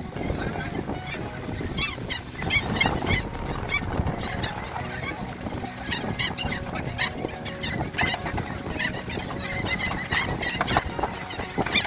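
A large flock of birds calling all at once: many short calls overlapping in a continuous noisy chorus, over a steady background haze.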